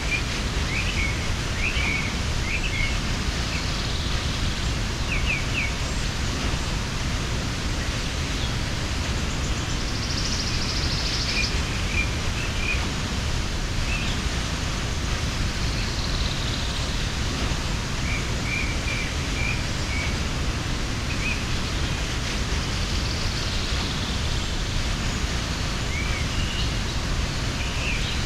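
Steady rushing of a mountain waterfall, with small birds chirping on and off over it and a brief buzzy trill about ten seconds in.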